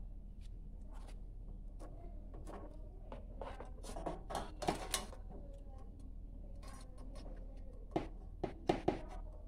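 A water bottle scraping and rustling against a motorcycle's wire basket as it is pushed into place, then a few sharp knocks near the end as the bottle is shaken against the wire to show it is held firm by its rubber bands.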